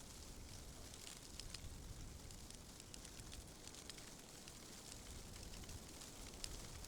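Faint outdoor ambience: a low, even rumble with many scattered soft, high crackles and ticks.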